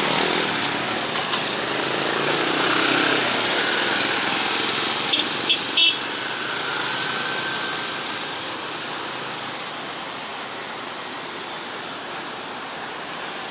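Street traffic: a motor vehicle engine passes, building up over the first few seconds and then slowly fading, with three short high beeps near the middle.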